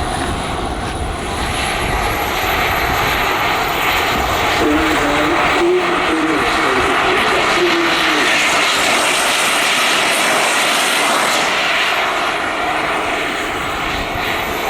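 Model gas-turbine engine running, a jet rush with a thin high whine that rises and falls, loudest a little past the middle.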